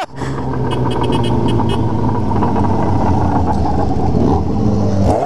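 Motorcycle engines running steadily at low speed, a continuous low engine note with wind noise on the microphone.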